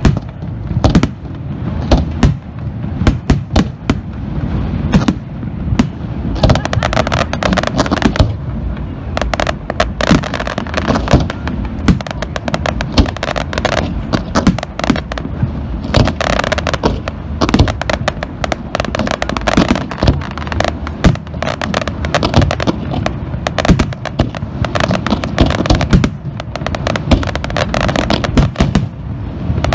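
Aerial firework shells bursting in a dense, continuous barrage: many sharp bangs in quick succession over a steady low rumble of echoing blasts, with crackling between them.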